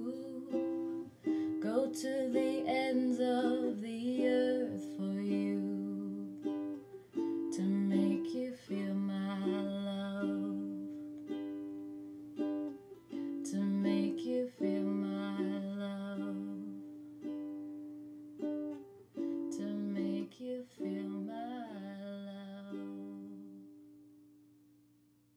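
Ukulele played slowly as an instrumental ending to a song, each strum left to ring. The last chord rings out and fades away near the end.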